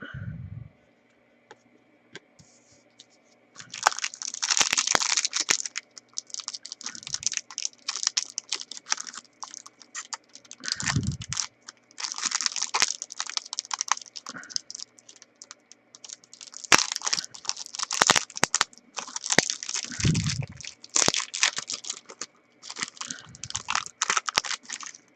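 Trading card packs and cards being handled: bursts of crinkling plastic wrapper and quick clicking of cards, with a few dull thumps as things are set down on the table.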